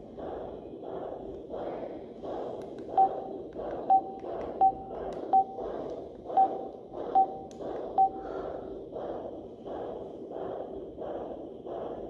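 Foxfine white noise machine playing a rhythmic whooshing sound, about three pulses every two seconds. Over it come seven short, sharp beeps from about three to eight seconds in, as its buttons are pressed.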